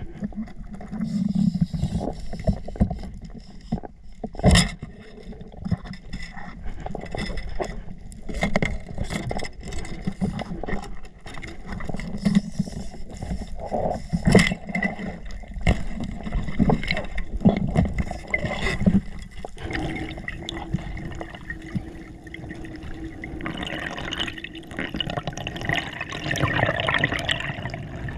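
Muffled underwater sound through a camera's waterproof housing during a spearfishing dive: a low water rush with scattered clicks and knocks, the sharpest about four seconds in and again about fourteen seconds in. Near the end the rush of water grows louder and brighter as the diver swims up to the surface.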